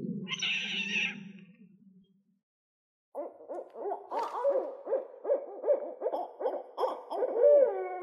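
A long-eared owl's low calling, with a brief higher note near the start, fades out after about two seconds. After a second of silence, a barred owl starts a rapid, excited series of hoots and cackling calls that rise and fall in pitch, growing louder towards the end.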